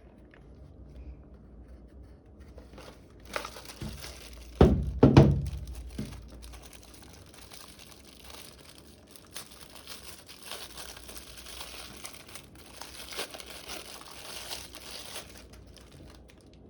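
Packaging crinkling and rustling as a product is unwrapped from its box, with a few loud knocks about five seconds in.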